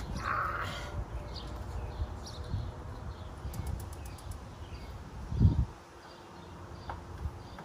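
Low, gusty rumble like wind buffeting the microphone, with faint bird chirps and one dull thump about five and a half seconds in.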